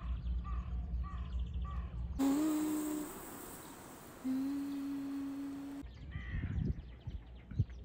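Wind rumble with a bird's short repeated calls. About two seconds in, this gives way to an even street noise with a steady hum. After about six seconds, scattered short bird calls.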